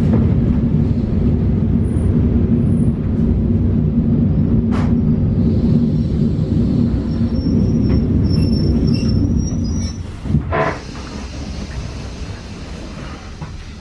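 EN71 electric multiple unit heard from inside the carriage: a steady loud low rumble, with a few faint high squeaks; about ten seconds in there is a knock and the rumble drops to a quieter level.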